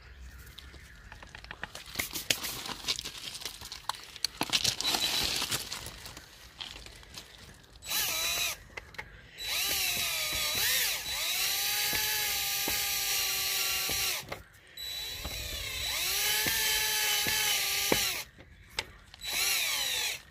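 Cordless drill with a socket adapter spinning a bolt on a scooter, run in four bursts in the second half. Each burst starts with a rising whine and then holds steady; the longest lasts about five seconds. Before the drill runs there is a spell of clicking and rattling.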